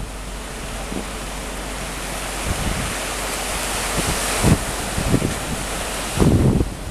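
Wind blowing across the camera microphone: a steady rushing hiss that builds toward the middle, with low buffeting gusts near the end.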